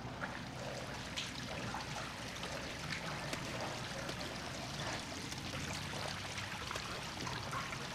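Water pouring and splashing steadily down a sewer shaft, with small splashes and knocks scattered through it.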